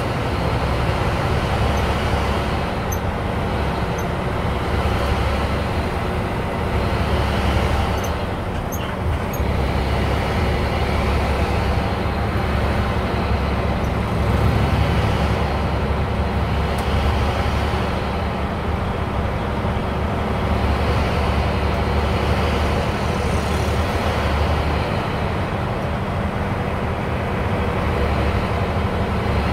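A bus driving along, heard from inside its cabin: a steady low engine drone with road noise.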